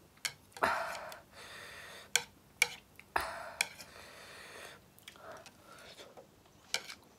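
A person eating ramen close to the microphone: a string of sharp irregular clicks with short soft noisy stretches between.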